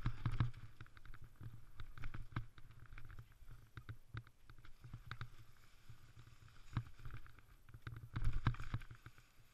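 Mountain bike rolling fast over a leaf-strewn dirt trail: a steady rumble of tyres on the ground, with irregular rattles and knocks from the bike over bumps. The knocking is heaviest at the start and again about eight seconds in.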